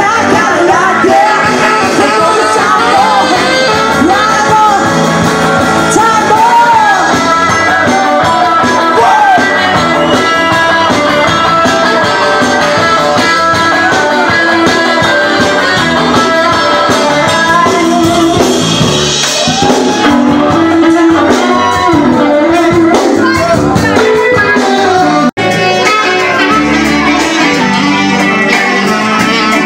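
Live band music with a woman singing lead into a microphone, recorded close up on a phone. The sound drops out for an instant near the end.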